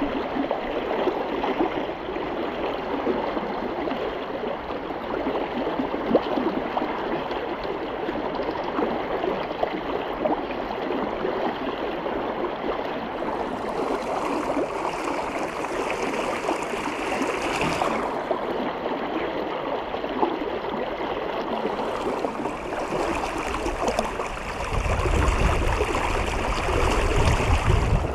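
River current rushing and splashing steadily around a wader's legs. A low rumble joins the water noise near the end.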